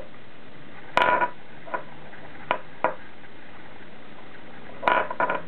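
Scattered light knocks and taps of a hand and finger puppet bumping on a wooden tabletop. The loudest is a short cluster about a second in, then a few single taps, and another quick cluster near the end.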